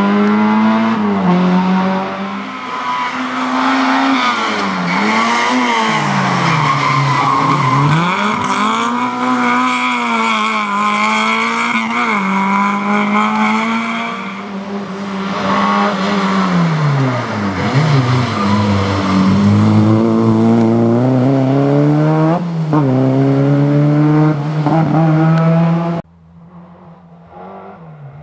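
Autobianchi A112 Abarth rally cars' small four-cylinder engines driven hard through bends. The pitch climbs through the gears and falls back on lifts and downshifts, over and over. Near the end the sound drops off abruptly to a faint engine.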